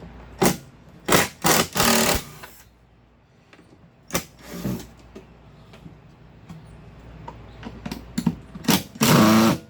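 Wooden crate panels being handled and set down: a series of knocks and scrapes, with a cluster of them about a second in and a long, loud scrape near the end.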